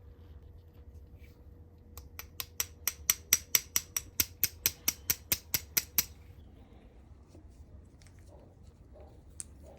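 A ratchet-like mechanism clicking steadily, about four to five sharp clicks a second for some four seconds, then stopping.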